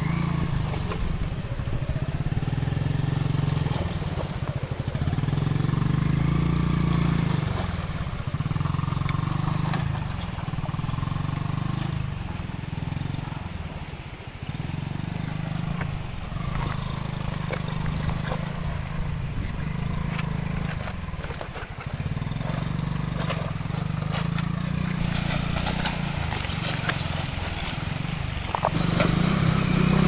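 Small motorcycle engine ridden in low gear, its revs rising and falling every couple of seconds as the throttle is worked to get the bike over rocks and through shallow stream water. Water splashes around the wheels near the end.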